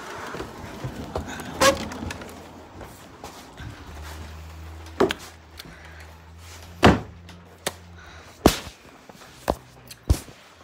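A door and footsteps as someone walks indoors, heard as about half a dozen scattered sharp knocks and thumps, the loudest near the middle and later on, with the rub of a phone being handled. A low steady hum comes in about 4 seconds in and stops a few seconds later.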